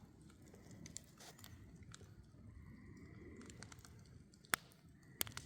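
Campfire crackling, with scattered small snaps and two sharp pops near the end.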